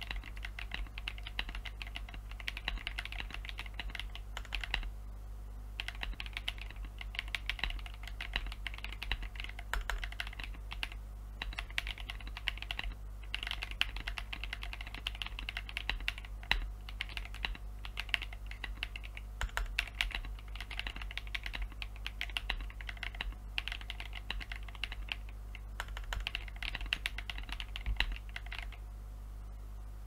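Typing on a Next Time 75 aluminium-case custom mechanical keyboard: a dense patter of keystrokes in runs of a second or two with short pauses between, stopping shortly before the end.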